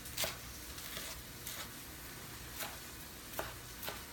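Knife slicing vegetables on a cutting board, a sharp tap every half second to a second, over the steady sizzle of chicken breast frying in a pan.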